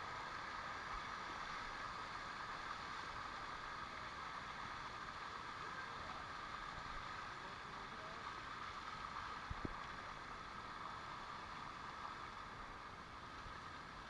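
Shallow waterfall water running steadily in a thin sheet down sloping rock, close by, with one brief knock about two-thirds of the way in.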